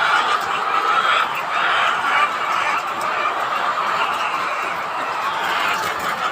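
A large flock of chickens in a poultry house, many birds calling at once in a dense, steady din.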